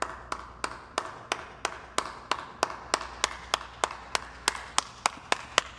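A single person clapping slowly and steadily, about three claps a second.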